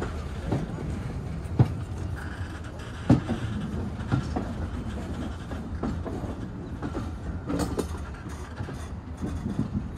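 Railway train running along the track: a steady low rumble with irregular clacks and knocks from the wheels, the sharpest about one and a half and three seconds in.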